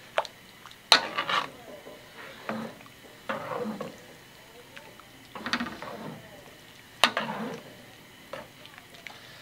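A metal ladle stirring noodle soup in a metal wok, clinking and knocking against the pan in several short bursts, with a sharp knock about a second in and another about seven seconds in.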